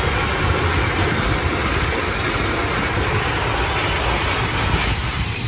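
Automatic car wash heard from inside a pickup's cab: water jets spraying and rotating brushes scrubbing against the windshield and body, a steady dense rush of noise with a low rumble.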